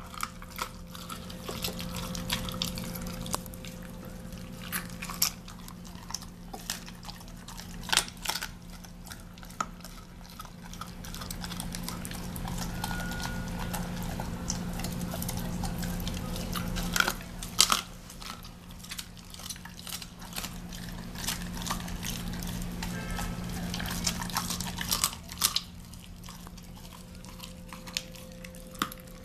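German Shepherd dog chewing raw chicken, with irregular sharp crunches as it bites down, over a steady low hum.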